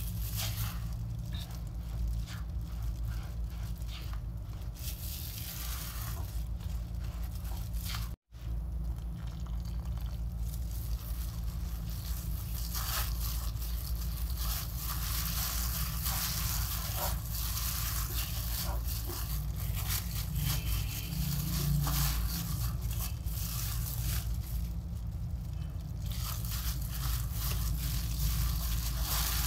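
Flour being mixed in a glass bowl, first stirred with a spoon and then rubbed by a plastic-gloved hand, giving an uneven scraping and rustling over a steady low hum. The sound drops out for a moment about eight seconds in.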